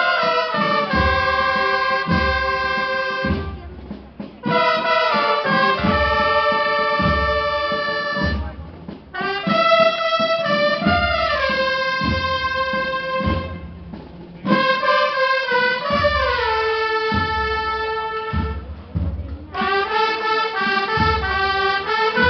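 Holy Week procession band of brass and drums playing a slow processional march. Long held brass chords come in phrases of three to four seconds with short breaks and some falling slides, over a steady drum beat.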